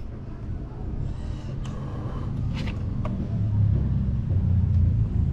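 Yamaha Sniper 150 single-cylinder four-stroke engine running through a UMA Tru Pressure aftermarket exhaust, a low rumble that grows louder about three and a half seconds in.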